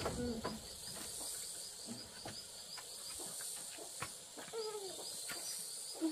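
Insects chirping in a steady pulse of about three high chirps a second over a constant high hiss. Scattered light knocks and a couple of short falling calls come through faintly, one of them near the end.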